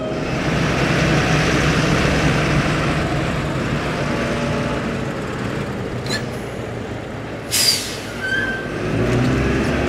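Fendt Vario tractor with a dumper trailer driving past, its engine running steadily, with a short hiss of air about seven and a half seconds in, as from the trailer's air brakes.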